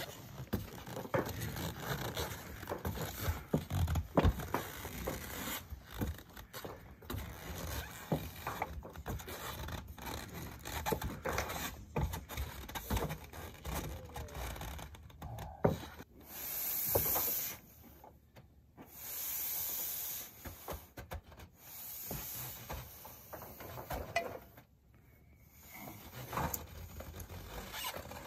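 Scraping and rubbing on a corrugated steel roof as someone in a rope harness moves about on it: boots scuffing and rope and chimney pipe rubbing on the metal panels, with many sharp clicks and knocks. In the second half come three longer hissing scrapes, a few seconds apart.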